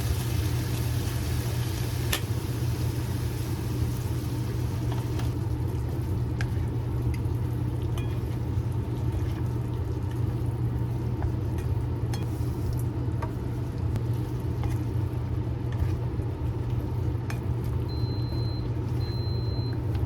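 Steady low machine hum at an even level, with a few faint clicks; three short high beeps near the end.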